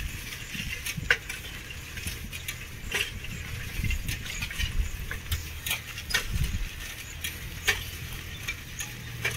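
Riding along a road on a vehicle: a steady low wind and road rumble, with scattered sharp clicks and rattles about once a second.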